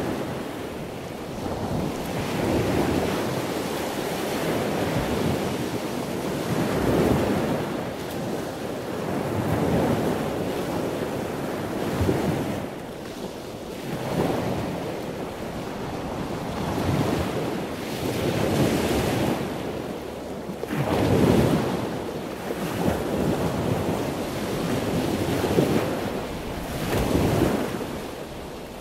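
Ocean surf breaking on a beach, the wash of noise rising and falling in surges every few seconds.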